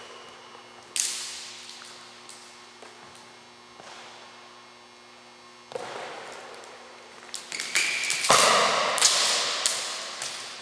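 Plastic juggling rings smacking into the hands and clattering onto a gym floor, sharp knocks that echo in the large hall. A dense flurry of knocks and clatter comes about eight seconds in, over a steady low hum.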